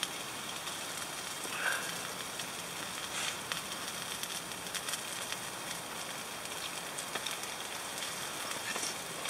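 Beef skirt sizzling on the wire grill of a charcoal shichirin, a steady hiss with faint crackles from the coals.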